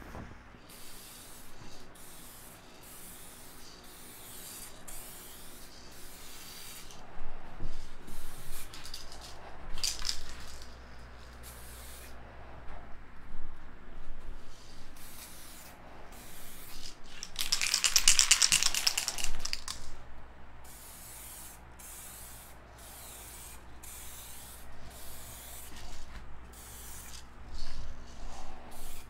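SprayMax 2K aerosol spray can hissing in many short bursts, with one longer, louder burst of about two seconds past the middle, as a light tack coat of black base coat goes on. A faint steady low hum runs underneath.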